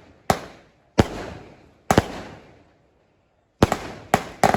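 A 36-shot fireworks cake firing: six sharp bangs, each fading out in a crackling tail, with a pause of about a second and a half after the third before three come in quick succession.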